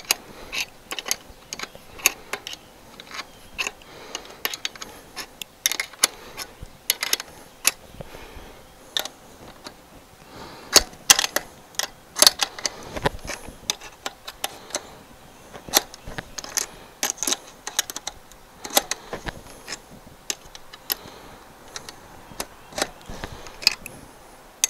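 Crescent wrench clicking and clinking against the metal clamp nuts and bracket of a rooftop antenna mount as the clamps are loosened. It is an irregular run of sharp metallic clicks, with the loudest a little past the middle.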